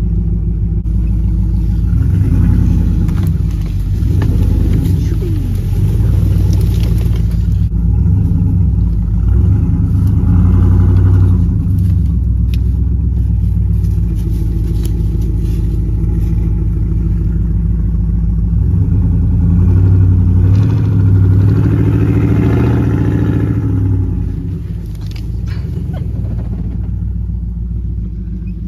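Chevy Silverado pickup's engine running as it drives a wooded trail, heard from inside the cab, with the revs rising and falling a few times.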